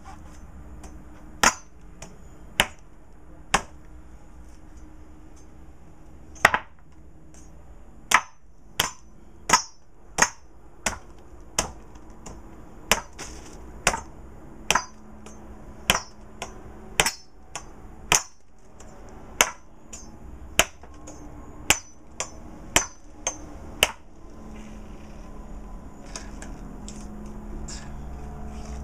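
Machete blade chopping into a coconut's fibrous husk on a wooden board: about thirty sharp chops, mostly one every half second to a second, stopping about 24 seconds in.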